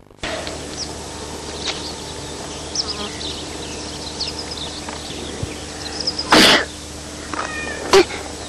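Outdoor ambience of birds chirping with many short high calls, over a steady low camcorder hum. About six and eight seconds in come loud short rushes of noise on the microphone.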